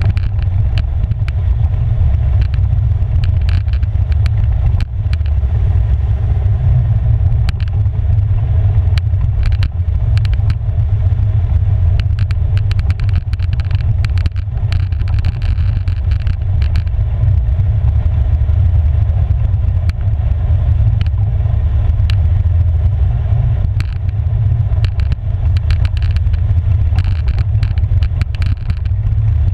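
Polaris 570 ATV's single-cylinder engine running steadily as the quad rides a gravel trail, a constant low drone. Frequent short knocks and rattles come from the machine jolting over the rough ground.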